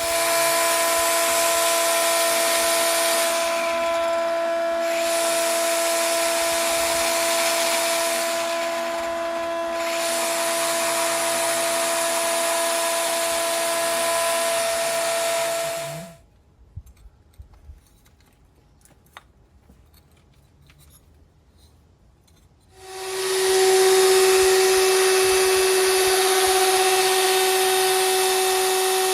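Angle grinder with a masonry cutting blade running steadily with a high whine as it cuts into brick. It stops about 16 s in, leaving a few faint knocks, then starts again about 23 s in with a lower, steady whine.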